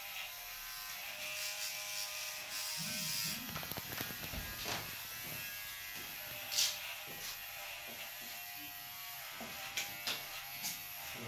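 Electric hair clippers buzzing steadily, with a few sharp clicks, the loudest about six and a half seconds in.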